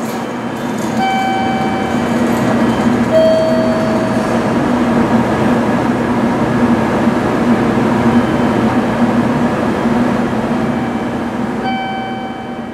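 A train running through the station: its running noise swells to a peak in the middle and fades near the end, over a steady low hum, with a few short high tones.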